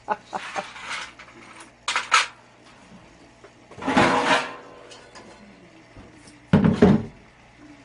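Metal clanking and scraping as hand tools work on the furnace's sheet-metal parts, with light clicks between three louder clatters about two, four and seven seconds in.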